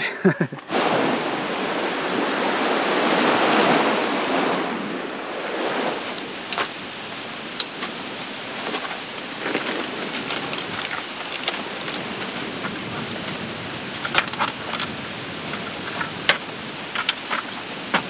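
Steady outdoor rush of wind, swelling over the first few seconds and then holding, with scattered light knocks and clicks as folding camp furniture and gear are handled and set down.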